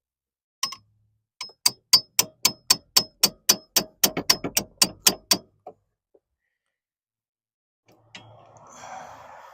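Hammer striking a 13mm deep socket, driving a new gearbox linkage rod end down onto its ball joint: one strike, then a quick run of about fifteen ringing metallic taps, about four a second. The joint does not go on. A softer rustling noise follows near the end.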